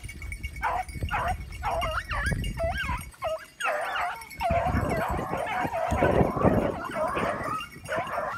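A pack of rabbit hounds baying in the scrub: repeated high, wavering cries that thicken from about three and a half seconds in into several dogs giving tongue at once. This is the pack's cry on a rabbit's scent.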